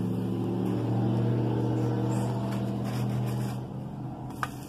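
A low, steady engine-like hum with even overtones, fading out about three and a half seconds in. A short click follows near the end.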